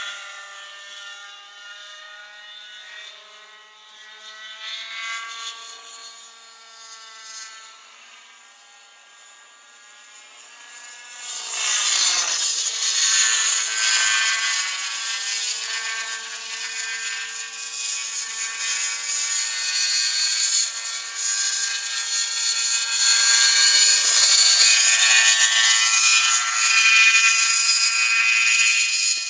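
Nitro-engined Raptor radio-controlled helicopter in flight: a high engine-and-rotor whine that rises and falls in pitch with throttle and distance. It is faint while the helicopter is far off, then much louder from a little before halfway as it comes close and hovers low.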